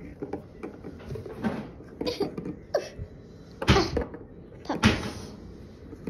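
Plastic toy animal figurines handled and set down on a wooden table: scattered light knocks and scrapes, with a few short breathy bursts of noise, the loudest a little past halfway and again about a second later.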